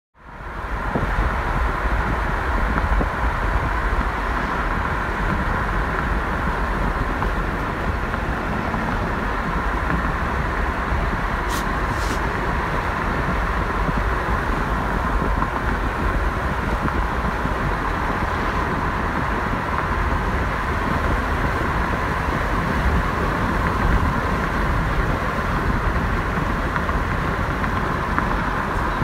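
A moving car's steady road noise, tyre rumble and wind hiss, heard from inside the cabin. Two brief clicks come about twelve seconds in.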